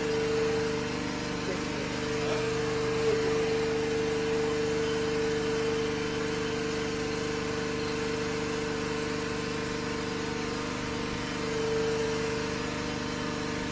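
Drain-cleaning machine running with a steady hum while its line is fed into a clogged storm drain to clear it.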